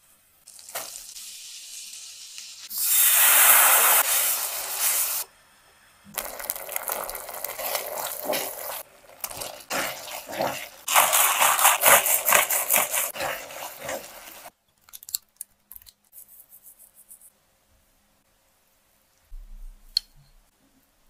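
Butter sizzling in a hot nonstick frying pan, swelling to a loud sizzle for a couple of seconds. A cream sauce then bubbles and sizzles while a silicone spatula stirs and scrapes it in quick strokes. Near the end it drops to a few soft taps and then almost silence.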